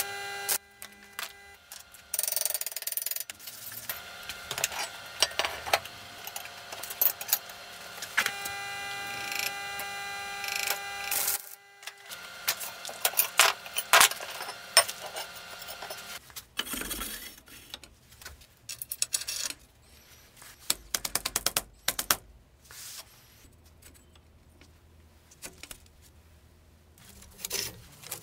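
Metal parts and tools clinking and clanking: irregular knocks and rattles, some leaving a short metallic ring, busy through the first half and sparser later.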